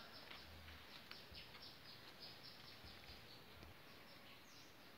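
Faint background ambience: a small bird chirping in a quick run of short high notes, about four to five a second, that fades out near the end, over low steady noise.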